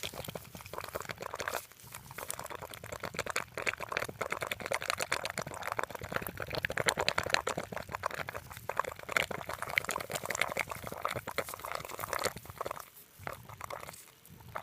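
Fast, irregular gurgling and popping from a small hole in rain-soaked ground, like bubbling water, with a brief lull near the end. The cause is unexplained; natural gas escaping from the ground has been suggested.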